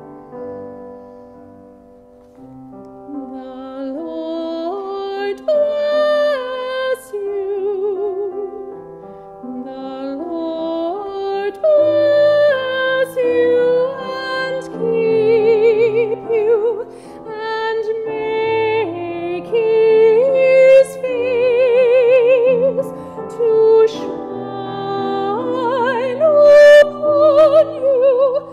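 A woman singing solo in a trained, operatic style with wide vibrato, over a church organ holding sustained chords. She begins softly and builds louder toward the end.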